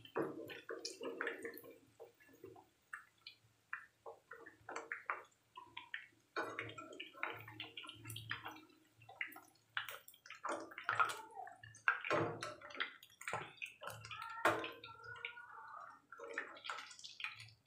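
Hot oil sizzling and crackling in a non-stick frying pan as fried chicken pieces are lifted out, with many irregular sharp clicks and scrapes from a perforated metal skimmer working in the pan.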